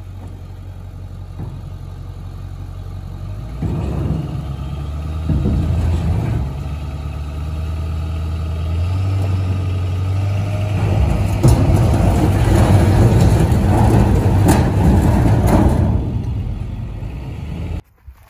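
2002 Ford Excursion's 7.3L Power Stroke turbo-diesel V8 running steadily, then revving up and pulling under load as it tows a shipping container on a chain. It is loudest in the second half, and the sound stops abruptly near the end.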